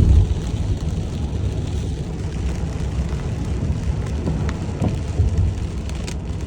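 Steady low rumble of a car driving on the road, road and engine noise, with a few faint clicks and knocks.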